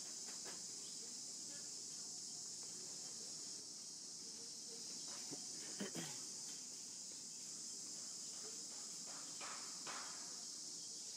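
Faint, steady high-pitched insect chorus, an unbroken shrill drone. A couple of brief faint sounds break in about six seconds in and again near the end.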